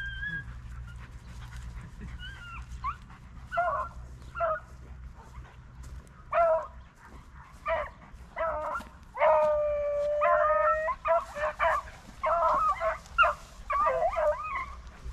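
Beagles giving tongue: repeated baying and yelping, sparse and faint at first and then dense and loud from about six seconds in, with one long drawn-out howl a little past the middle. This is typical of hounds working a rabbit's scent trail.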